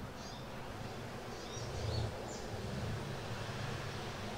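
Quiet outdoor background: a low steady rumble that swells briefly about two seconds in, with a few faint high bird chirps.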